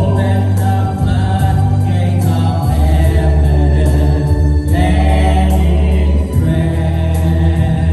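Gospel worship music: a choir singing over sustained bass notes, with organ.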